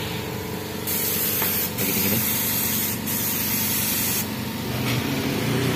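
Gravity-feed spray gun hissing as it sprays one-component clear gloss coat onto a metal panel, in several bursts that stop about four seconds in, over a steady low hum.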